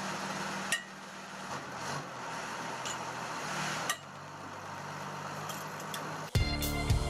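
A heavy machine's engine runs steadily with a low hum, broken twice by a sharp clank. About six seconds in, background music with a strong regular beat comes in loudly.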